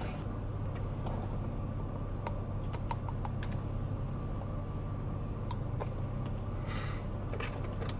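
Steady low hum of a van idling, heard inside the cabin, with a few faint clicks and taps of a small plastic scoop being handled and a short breathy hiss about seven seconds in.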